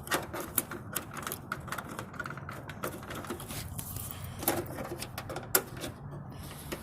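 Irregular plastic clicks and rattles from a Mini Cooper's front side-marker lamp housing being worked loose from its fender opening, with a few sharper snaps as its clips and a metal retaining tab let go.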